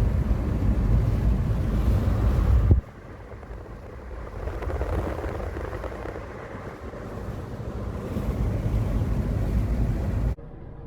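Car driving, with a loud, steady low rumble of road and wind noise that cuts off abruptly about three seconds in. Quieter noise follows, swelling and easing, before it cuts off again near the end.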